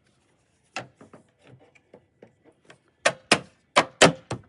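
A run of sharp hard clicks and knocks as a part is worked and pressed into place by hand: a few light taps, then about five loud clicks in quick succession near the end.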